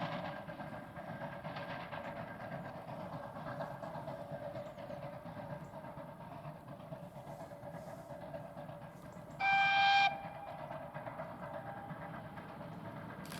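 Steam locomotive whistle giving one short blast about nine seconds in, over a low train rumble that eases off early on and then holds steady.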